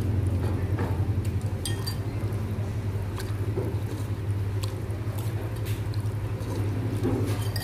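Chopsticks stirring and lifting noodles out of a bowl of soup, with scattered light clicks against the bowl, over a steady low hum.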